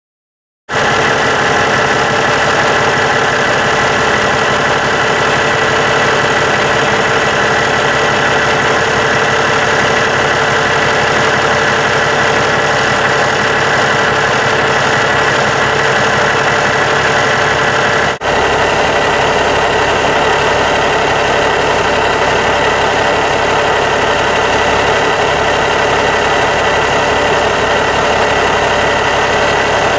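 Cummins ISX 525 inline-six diesel engine of a Kenworth T660 idling steadily. The sound starts abruptly under a second in and drops out for an instant a little past halfway.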